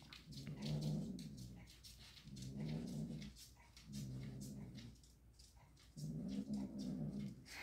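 Mating cats, the tom gripping the crouched queen's neck, giving four low, drawn-out moaning calls, each about a second long with short pauses between.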